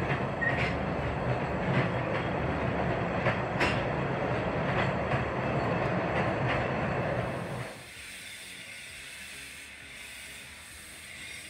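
Narrow-gauge train running on the line, its wheels clicking over the rail joints. About eight seconds in the running noise drops away suddenly, leaving a quieter hiss.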